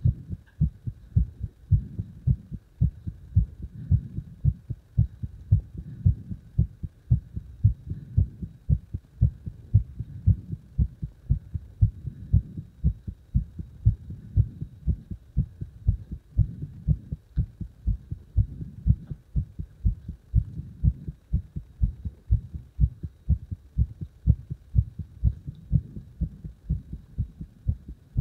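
A human heart beating strongly: a steady, regular rhythm of low thumps in lub-dub pairs.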